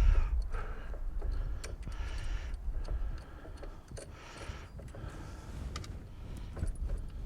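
Light metal clicks and taps as a bolt is worked back into a snowblower's axle assembly, with scattered handling rustle.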